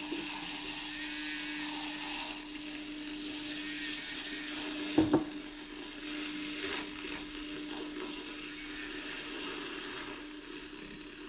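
Small handheld battery frother whirring steadily in a glass of coffee, with a brief clatter about five seconds in.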